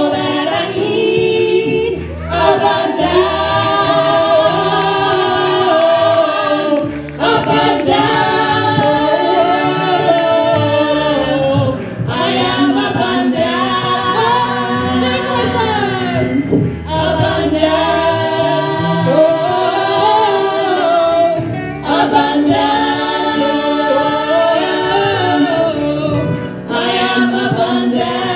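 A group of voices singing together, choir-style and without instruments, in phrases with short breaks every few seconds.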